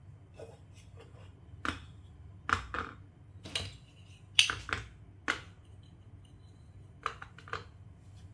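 Plastic Lego Duplo bricks clacking as they are handled and set down on a Duplo baseplate, about a dozen separate sharp clicks and knocks, the loudest a little over four seconds in.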